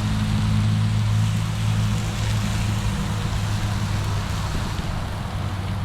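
Peppers frying on an outdoor grill: a steady sizzle under a constant low engine hum that eases about halfway through.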